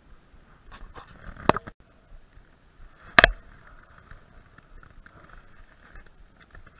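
Two sharp knocks about a second and a half apart, the second louder, over faint rustling: handling of a fishing rod and baitcasting reel.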